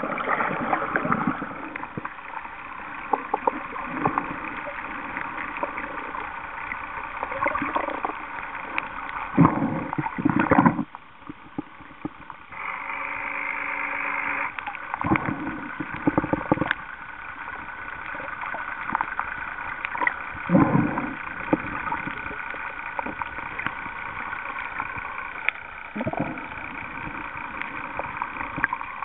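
Water sloshing and gurgling around a camera held in the sea, with repeated short surges of splashing over a steady low hum.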